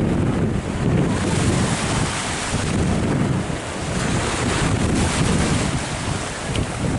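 Wind buffeting the microphone: a steady low rumbling noise that swells and eases in gusts.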